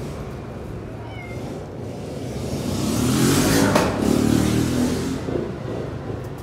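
A motor vehicle passing by, its noise swelling and then fading over about three seconds, with a short, faint high meow from a kitten about a second in.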